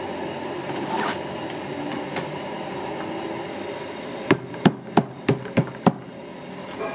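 Cleaver chopping on a wooden board: six sharp strikes in quick succession, about three a second, a little past the middle, over a steady background hum.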